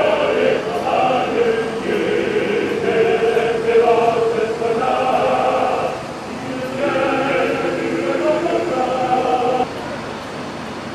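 A choir singing in long held notes, pausing briefly about six seconds in, then singing on until it stops near the end.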